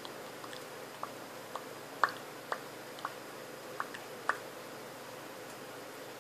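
Lips smacking: about seven soft, wet clicks, spread over three and a half seconds, against a faint steady hiss.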